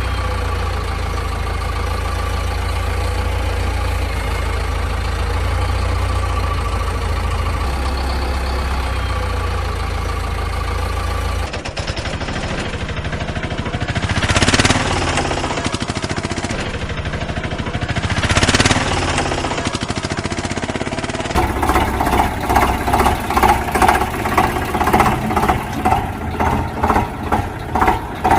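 Vehicle engine sounds in three sections with abrupt changes. First a steady low engine running, then a stretch with two swelling whooshes, then a fast rhythmic chugging.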